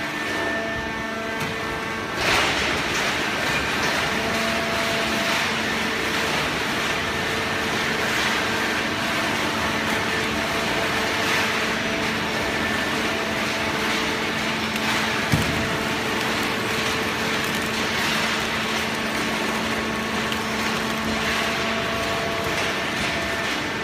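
Corrugated cardboard baler machinery running: a steady machine hum made of several held tones over constant noise, which grows louder about two seconds in. There is one sharp click about fifteen seconds in.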